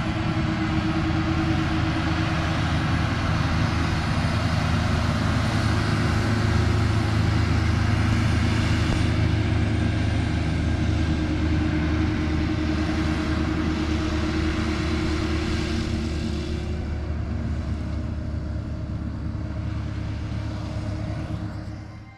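Vehicle engine running steadily, a constant low drone with a hiss over it, fading out near the end.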